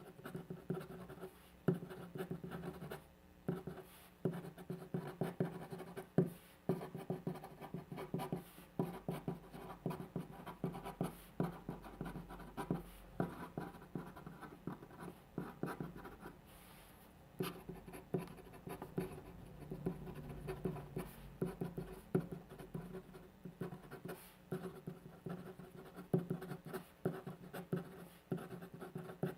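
Pen writing on paper: a steady run of short scratching strokes and light taps, broken by a few brief pauses between characters.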